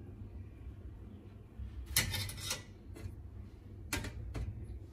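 A spoon clinking against a small bowl of dipping sauce: a cluster of light clinks about two seconds in, then two sharp knocks near the end, over a low steady hum.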